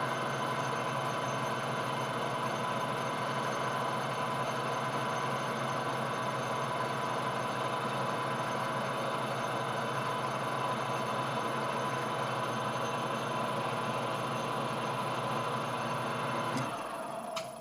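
Metal lathe running steadily under a knurling pass on a Delrin workpiece, a constant motor and gear hum with several fixed tones. It shuts off shortly before the end.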